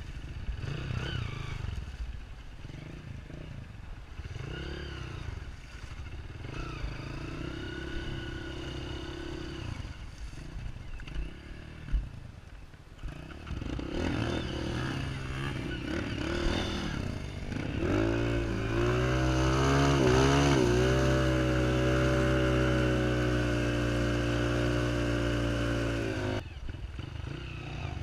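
Off-road motorcycle engine running on a trail, its pitch rising and falling with the throttle, with a sharp knock about halfway through. Later it revs up, holds a steady, louder pitch for several seconds, then drops off sharply near the end.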